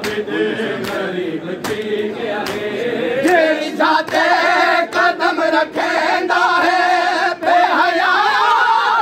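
A group of men chanting a Shia noha (mourning lament) together, with sharp chest-beating slaps (matam) keeping a beat about every 0.8 seconds. About three and a half seconds in, the chorus gets louder and higher.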